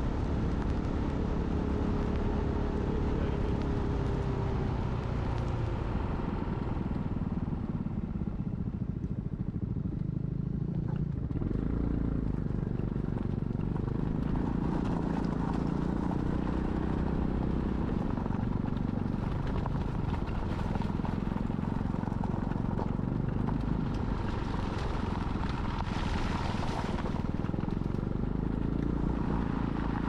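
Motorcycle engine running as the bike is ridden. Its pitch drops over the first few seconds, then the engine speed rises and falls several times.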